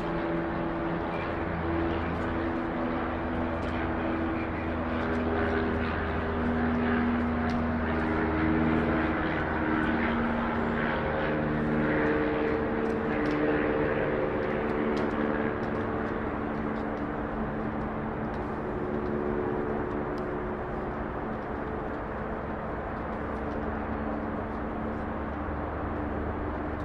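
Boeing 737 MAX's CFM LEAP-1B turbofan engines running at low power as the jet taxis, a steady rush with several held tones, swelling slightly in the middle.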